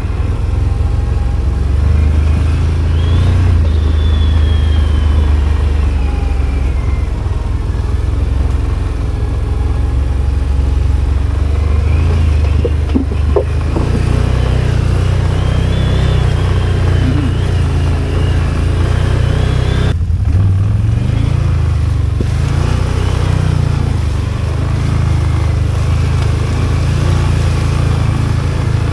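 Can-Am ATV engine running at low trail speed, the revs rising and easing with the throttle, with a brief let-off about twenty seconds in.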